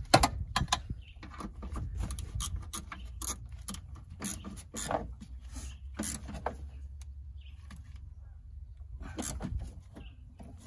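Hand ratchet clicking in short, irregular runs of strokes, tightening the nut on the fluid line fitting of a newly fitted clutch master cylinder. There is a sharp metal clink right at the start.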